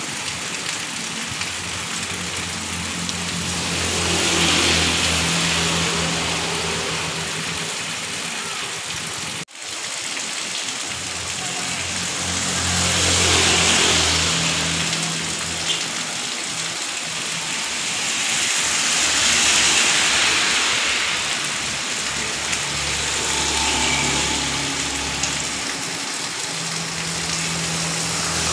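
Heavy rain falling on a street, a steady hiss. Motorbikes pass on the wet road four times, their engines and tyre swish swelling and fading over it.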